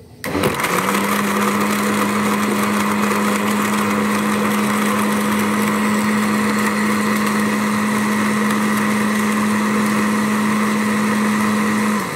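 Electric blender motor switching on, quickly spinning up to speed and running steadily as it blends ice into a creamy drink, then switching off and winding down at the very end.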